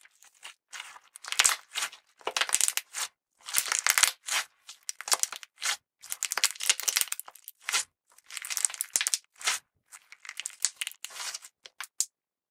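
Hands stretching, folding and pressing clear slime packed with sequins and glitter, giving repeated bursts of sticky crackling with short silences between.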